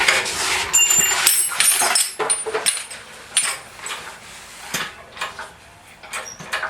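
Engine hoist carrying an engine being rolled across the floor: casters squeaking and metal parts clinking and knocking, busiest in the first few seconds, then scattered clicks.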